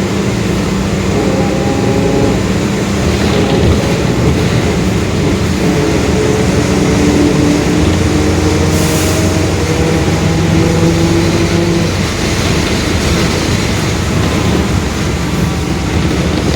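Mercedes-Benz OF-1721 Bluetec 5 bus under way: the diesel engine running steadily under a droning whine from the differential that slowly rises in pitch as the bus picks up speed. A short hiss about nine seconds in.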